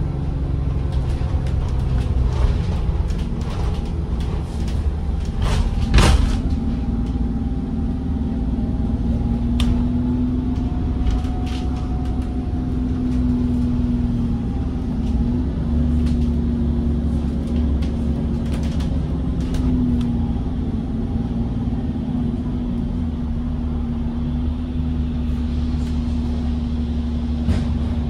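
Double-decker bus running along the road, heard from inside the cabin: a steady low rumble with a droning engine tone that dips and rises as the bus changes speed. There are scattered rattles from the body, and one sharp knock about six seconds in.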